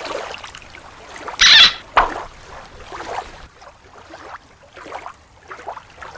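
Water splashing as a hand puts a small plastic toy sea otter into shallow water, with one loud splash about a second and a half in and a sharp click just after; then softer, scattered water sounds.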